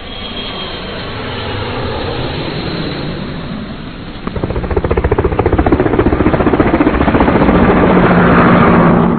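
A rotor aircraft coming in close: a swelling rush turns, about four seconds in, into fast rhythmic rotor chopping that grows louder, then cuts off abruptly.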